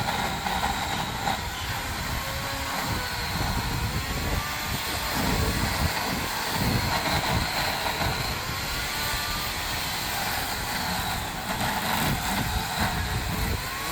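Gas chainsaw running steadily, with a low rumble underneath and the engine pitch drifting up and down a little at times.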